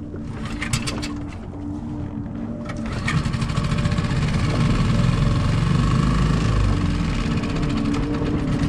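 Dinghy outboard motor running steadily, getting louder about three seconds in, with a few clicks about a second in.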